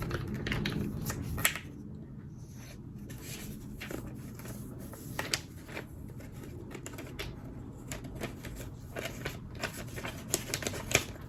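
Paper and cardboard packaging being handled: scattered rustles and light clicks, busiest in the first second and a half.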